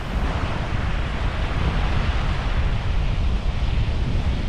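Wind buffeting the microphone with a heavy, gusty low rumble, over the steady wash of small waves breaking onto a sandy beach.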